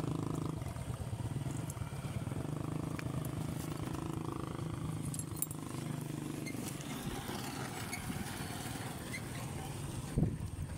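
Small motorcycle engines running steadily as motorcycles and a motorcycle tricycle move along the road, with a brief thump near the end.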